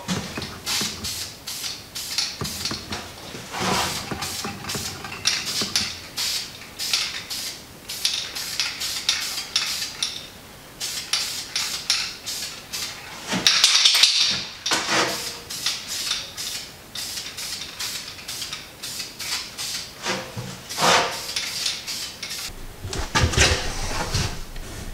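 Aerosol spray paint can being shaken, its mixing ball rattling, with short hisses of spray and one longer hiss about halfway through, as paint goes onto bare steel ground clean around fresh welds to keep it from rusting.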